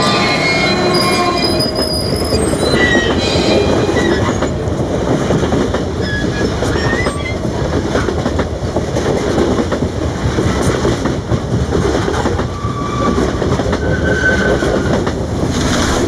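Freight train braking on the rails, with a steady rolling rumble. High-pitched brake and wheel squeals are strongest and most layered in the first few seconds, then come back as a few short squeals.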